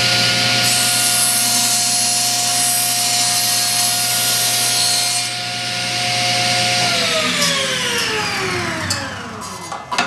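Table saw running steadily while its blade makes an angled crosscut through a wooden board. About seven seconds in the saw is switched off, and its hum falls in pitch as the blade spins down.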